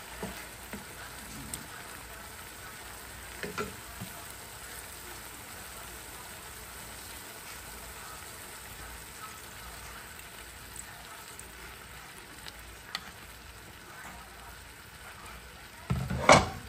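Pork pieces sizzling steadily in a frying pan as soy sauce is poured in, with a few light clicks. A loud knock near the end.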